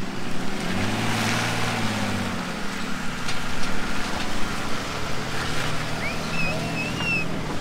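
Pickup truck engine revving up and easing off as the truck drives out of wet mud, over a steady hiss of wind. A few short high chirps sound near the end.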